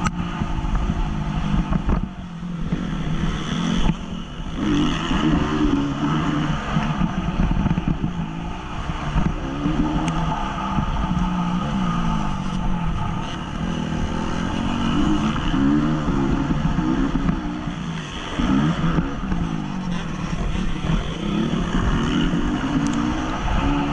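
2014 Honda CRF250 motocross bike's single-cylinder four-stroke engine heard from the rider's helmet camera, revving hard, its pitch rising and falling over and over as the throttle opens and closes.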